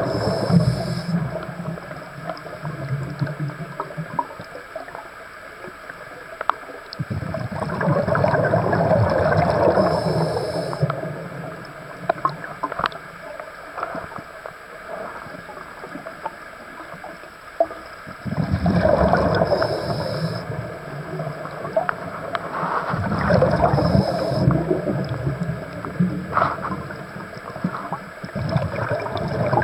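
A scuba diver breathing underwater through a regulator. Exhaled bubbles gurgle past the camera in bursts of a few seconds, about five times, with quieter stretches between breaths.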